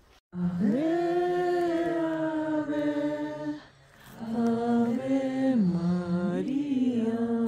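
A group of voices singing slow, held notes in two long phrases, the pitch stepping from note to note, with a short breath between the phrases just under halfway through.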